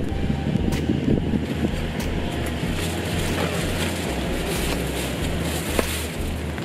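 Steady low outdoor rumble of wind buffeting the microphone, with a couple of faint sharp knocks as a knife works into a durian's husk.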